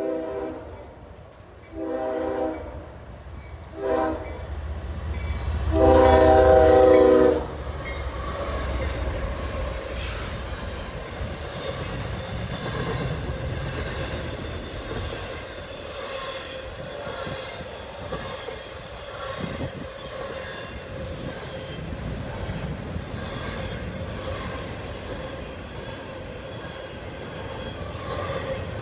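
A CSX locomotive's air horn sounds a chord in several blasts in the first seven seconds: long ones with a short one before a final long, loudest blast, the pattern of the grade-crossing signal. Then the train rolls by with a steady rumble of wheels on rail.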